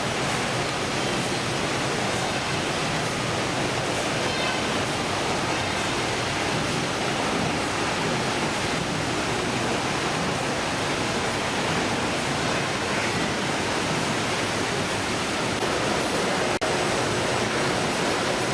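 Steady rushing noise with no pitch or rhythm, which cuts out for an instant near the end.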